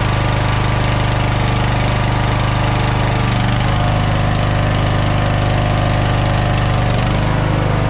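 Toro LX460 lawn tractor's engine running steadily while the tractor creeps forward in drive on its freshly rebuilt transmission. The engine note changes about halfway through and again near the end.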